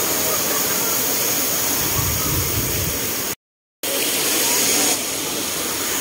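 Steady rushing of a waterfall cascading into a pool, with faint distant voices. The sound drops out completely for about half a second a little past the middle.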